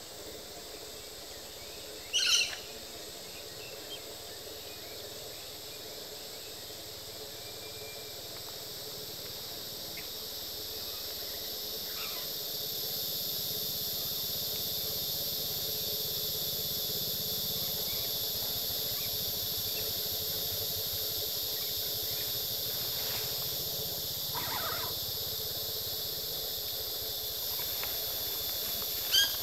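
Black-winged lory giving a short, loud call about two seconds in and another at the very end, with a few fainter calls in between. Under the calls runs a steady high hiss that grows louder partway through.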